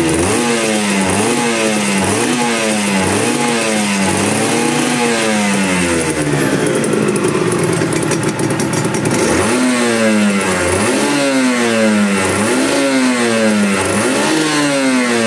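Honda NSR250 MC21's two-stroke V-twin engine being revved in repeated throttle blips, the pitch rising and falling about once a second. It holds a steadier note for a few seconds around the middle, then the blips start again.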